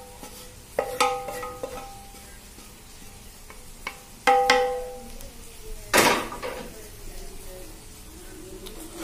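A wooden spatula knocking and scraping against a non-stick grill pan and a ceramic bowl: several sharp knocks that ring briefly, the loudest pair about four and a half seconds in, then a louder clatter about six seconds in.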